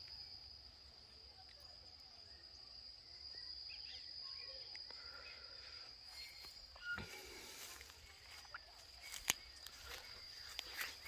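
Faint outdoor ambience dominated by an insect's steady, unbroken high-pitched trill, with a few scattered clicks and short chirps.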